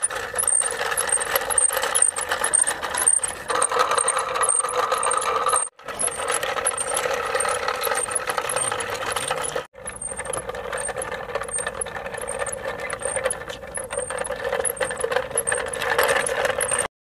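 Toy auto-rickshaw running along asphalt: a steady mechanical whirring and rolling with a regular high ticking about three to four times a second. It cuts out for a moment twice.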